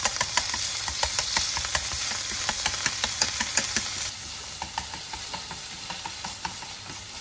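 Minced pork sizzling in oil in a frying pan, with chopsticks clicking against the pan as the meat is stirred. The sizzle eases a little about four seconds in.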